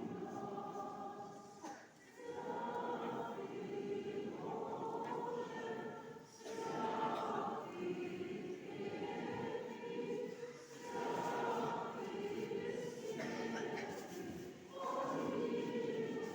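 A choir singing an Orthodox memorial chant in long sustained phrases of about four seconds each, with short breaks between them.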